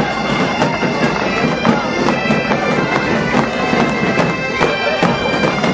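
A large band of gaita-de-foles bagpipes playing a tune over their steady drone, with snare drums, tamboril and a bass drum beating a steady rhythm along with them.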